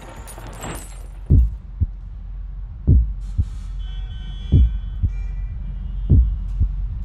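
Slow heartbeat sound effect: four lub-dub double thumps, about one every second and a half, over a steady low drone. A faint high held tone comes in about halfway through.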